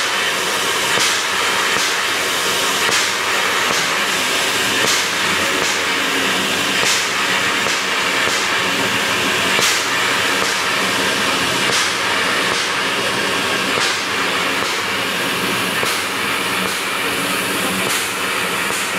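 FS 741.120 steam locomotive hissing steam steadily, with a short sharp chuff or release about every one to two seconds.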